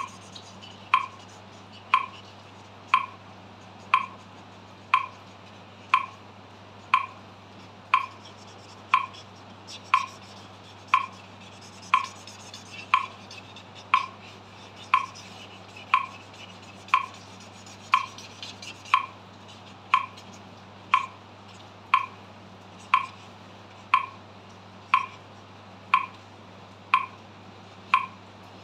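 Metronome ticking at 60 beats per minute, one sharp click each second. Between the clicks, the faint scratch of a felt-tip marker drawing on paper, most noticeable in the middle.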